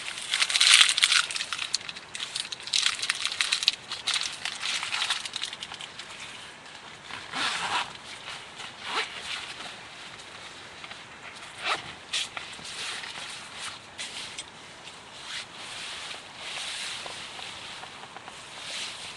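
Footsteps crunching on a rocky mountain trail, with clothing rustling, in an uneven walking rhythm; a few sharper crunches stand out.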